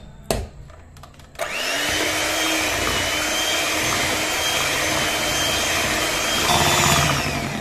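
Electric hand mixer switched on about a second and a half in, its motor running with a steady whine as the beaters whip ice-cream mixture in a steel bowl. Near the end it is switched off and the whine falls away as it spins down. A couple of clicks come just before it starts.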